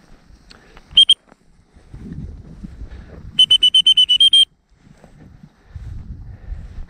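A high-pitched signal to a working pointing dog: one short blast about a second in, then a rapid run of about ten short pulses at the same pitch. Low rustling of movement through tall grass fills the gaps.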